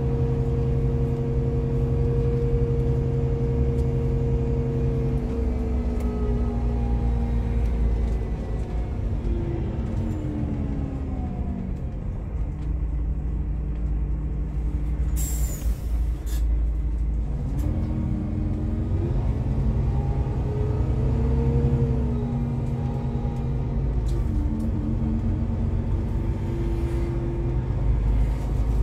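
Iveco Crossway LE bus with its Iveco Cursor diesel engine and Voith automatic gearbox, heard from inside the passenger cabin: the engine note falls as the bus slows, settles low, then a short sharp hiss of air from the air brakes comes about halfway through. After that the engine note climbs again as the bus pulls away.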